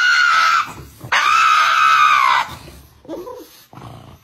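Pug howling dramatically: two long, high howls of about a second each. The pitch rises slightly and falls at the end of each. It goes quieter in the second half.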